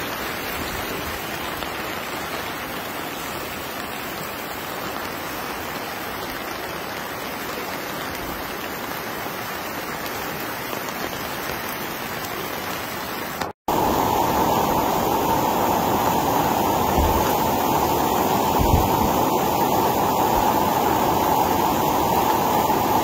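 Floodwater rushing through a street, a steady noise of churning water. It drops out for a moment about halfway and comes back louder.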